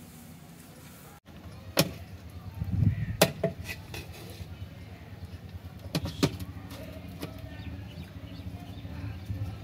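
Several sharp clicks and knocks over a low steady hum, after a brief dropout about a second in.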